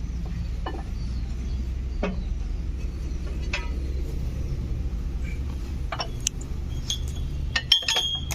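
Engine running steadily at a low drone, with scattered light metallic clinks and taps on top, and a sharper cluster of ringing metal clinks near the end.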